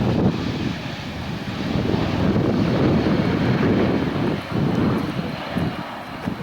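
Jet engine noise of an Airbus A330-200 airliner landing: a loud, rough rumble that swells about two seconds in and eases slightly near the end.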